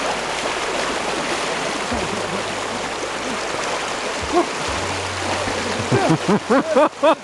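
Steady rushing of a shallow stream with splashing as a person wades in and swims. About six seconds in comes a quick run of short repeated vocal cries, roughly four a second.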